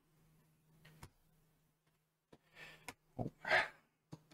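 Quiet handling of an opened laptop during reassembly: a few faint clicks and taps, and a short breath out about three and a half seconds in, over a faint steady hum.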